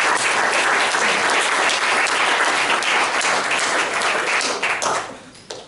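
An audience applauding, a dense steady clapping that dies away about five seconds in.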